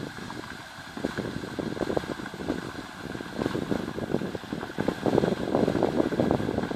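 Fendt 927 Vario tractor running in the distance as it pulls a slurry tanker away across a field, under wind buffeting the microphone. The gusts grow louder about five seconds in.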